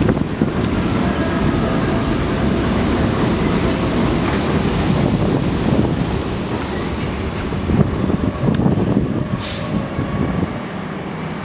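R32 subway train rumbling into an elevated station and slowing, with faint wheel and brake squeal. A short sharp hiss comes about nine and a half seconds in, and the rumble eases near the end.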